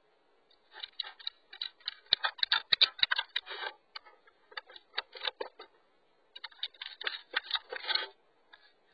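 Irregular clusters of rapid light clicks and scratches very close to a small camera's microphone, thin-sounding and cut off in the highs, with short pauses between the clusters.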